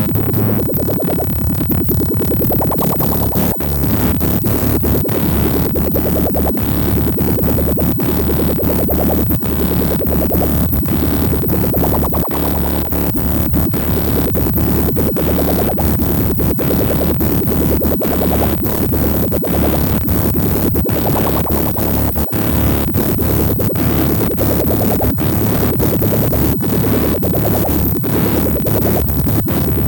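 Electronic music played live on hardware synthesizers and a groovebox: a steady, fast drum-machine beat over a sustained synth bass, with a brighter synth tone that swells and fades every few seconds.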